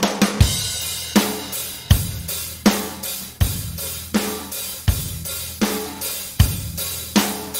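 A drum-kit loop playing back through a compressor plug-in. Kick and snare alternate, a hit about every three-quarters of a second, with hi-hat and cymbal strokes in between.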